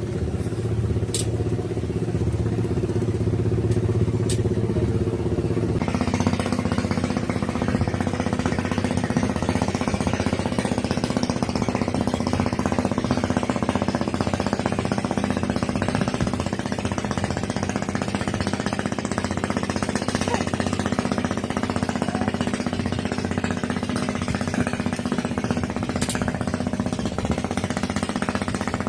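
A small engine running steadily; about six seconds in it speeds up to a higher, louder pitch and holds there.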